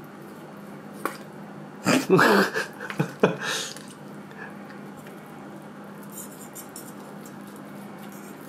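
Table knife and wooden fork cutting into a bacon-wrapped whole Camembert in a small cast-iron skillet, the blade scraping and clinking against the iron pan, loudest from about two to four seconds in.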